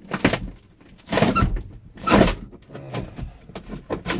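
Heavy thuds and scraping of a plywood-and-MDF floor panel being wrenched and knocked as it is forced loose, three big knocks with the loudest about two seconds in, then smaller knocks. The panel is caught on something as it is pried free.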